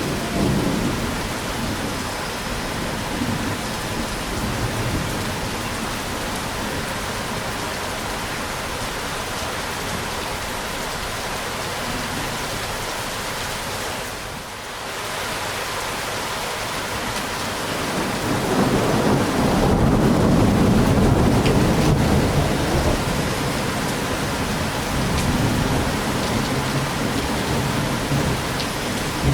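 Steady rain falling with thunder. A long, low rumble of thunder swells about two-thirds of the way in and is the loudest part, then fades back under the rain.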